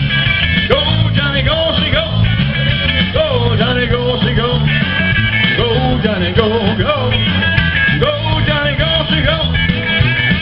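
Rock and roll music with singing over a steady bass beat; no separate firework bangs stand out.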